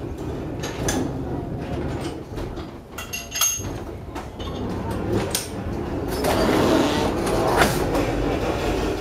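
Funicular cable car running down its track, heard from inside the car: a steady rumble of wheels and cable with scattered clanks and a brief metallic squeal about three and a half seconds in. The noise grows louder over the last few seconds as the car pulls into the lower station.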